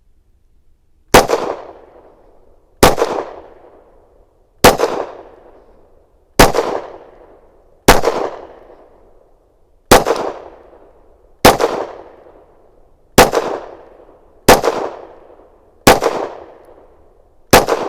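Canik METE SFT 9mm pistol firing eleven single shots at a steady, deliberate pace, about one and a half seconds apart, each shot trailing off in an echo.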